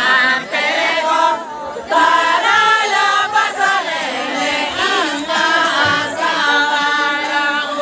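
A group of voices singing a traditional Santali lagre (lagney) dance song together, in rising and falling phrases, with a brief break about one and a half seconds in.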